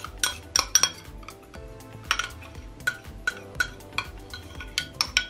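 Metal spoon clinking and scraping against a small glass bowl as thick mayonnaise dressing is scraped out of it, in a dozen or so irregular sharp clinks. Soft background music plays underneath.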